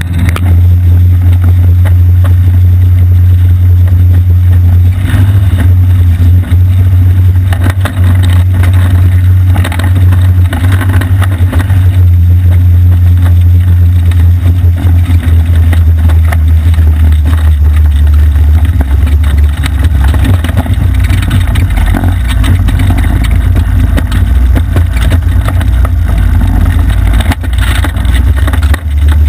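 Off-road go-kart's small engine running steadily as the kart drives, very loud and low, heard through a handlebar-mounted action camera.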